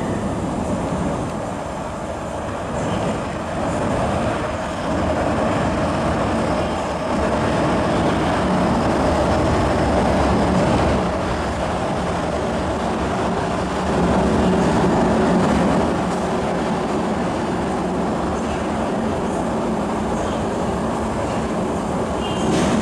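MTR M-Train electric multiple unit running through an underground station without stopping, a continuous rumble of wheels on rail with some clickety-clack, heard through the platform screen doors. It gets louder about two-thirds of the way through.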